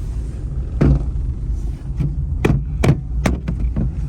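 Inside a moving Tata Tiago: steady low road and engine rumble, with a few sharp clicks and knocks, about four in all, the rattling noise from the rear being tracked down. The owner traces it to a hardened rubber on the rear seat touching metal.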